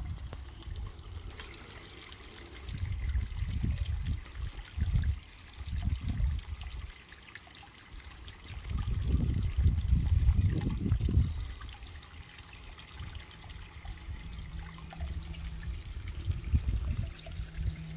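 Wind buffeting the microphone in uneven low gusts, strongest about halfway through, over a faint steady trickle of water.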